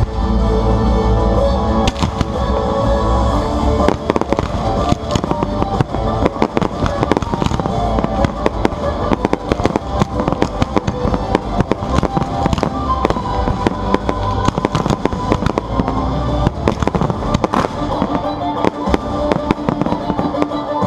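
Fireworks bursting and crackling in rapid succession, many sharp bangs a second, over loud music played along with the pyromusical display.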